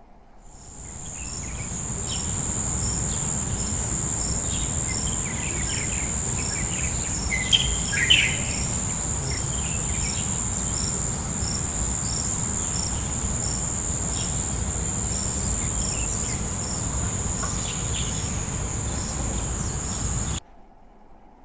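Insect chorus of crickets trilling steadily at a high pitch with a soft regular pulse, over a low rumble, with a few bird chirps about eight seconds in. It fades in over the first two seconds and cuts off abruptly about a second before the end.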